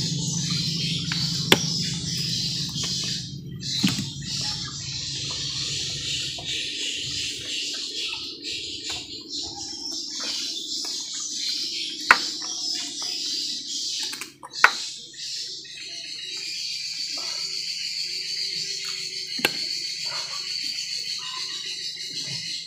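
Steady high-pitched chorus of birds and insects from the riverside forest, with a low engine hum that stops about six seconds in, and a few sharp knocks, the loudest about twelve and fifteen seconds in.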